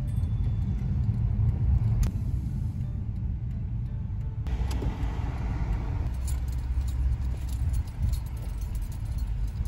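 Steady low rumble of a Honda car driving, heard from inside the cabin. From about halfway through comes a light, irregular metallic jingling and ticking.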